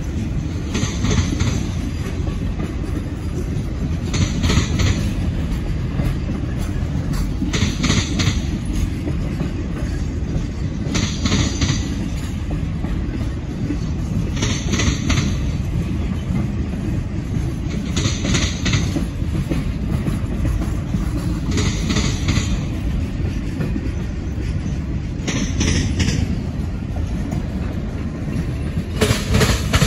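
Norfolk Southern Triple Crown RoadRailer trailers rolling past on their rail bogies: a steady low rumble broken by a short clatter of wheel clacks about every three and a half seconds.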